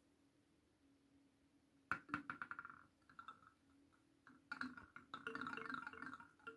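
A small ball rolling and clattering round inside a handheld wooden slatted cup rattle, knocking the wooden slats so they ring. A short burst of rattling comes about two seconds in, then a steady rattle over the last two seconds.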